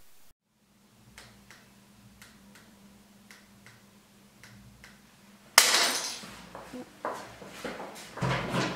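Rubik's cube being twisted by hand, a run of faint plastic clicks about three a second. About halfway through comes a sudden loud clatter, and low thuds follow near the end.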